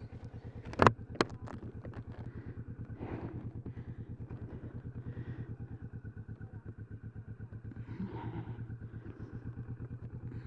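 Motorcycle engine idling with a steady, even low pulse. Two sharp clicks come about a second in.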